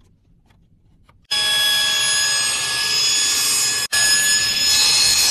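Table saw running at speed, a steady high whine made of several fixed tones over a hiss. It comes in abruptly about a second in and breaks off for an instant just before the four-second mark.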